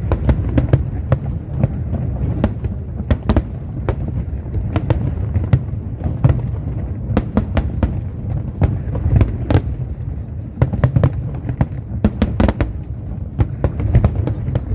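Fireworks display: many sharp cracks and bangs in quick succession over a continuous low rumble.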